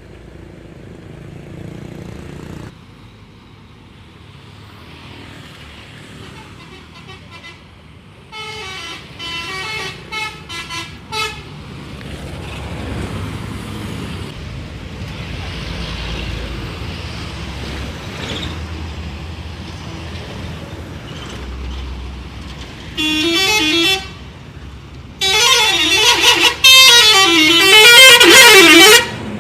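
Indonesian bus 'telolet' musical air horns playing short tunes over road traffic. A string of short toots comes about nine seconds in, and near the end a long, loud tune rises and falls in pitch.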